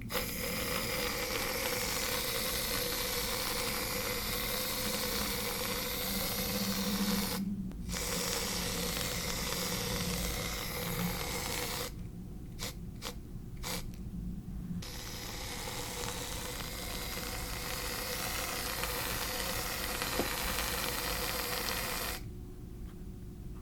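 Aerosol can of shaving foam spraying in long, steady hisses, stopping briefly a few times between spurts.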